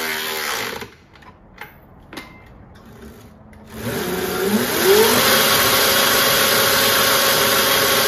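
A cordless power ratchet runs on the rear axle nut and cuts off about a second in, followed by a couple of tool clinks. About four seconds in, the Mototec electric dirt bike's motor spins the raised rear wheel up with a rising whine, then holds a steady whine as the newly installed wheel is test-run.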